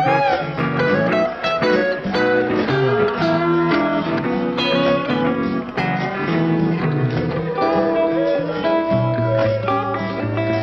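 Blues guitar music: plucked acoustic guitar notes and chords, with some bent, sliding notes.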